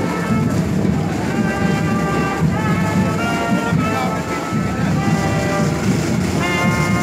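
Brass band with trumpets and trombones playing a procession march in long held notes, over the noise of a crowd walking in the street.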